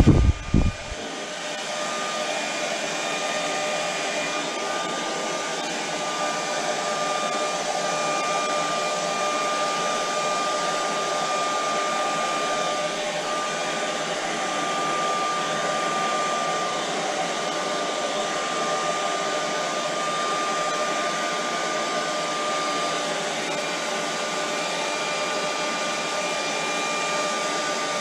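Handheld hair dryer running steadily, a constant motor whine over the rush of air, blowing wet white acrylic paint across a canvas. A couple of low thumps come in the first second.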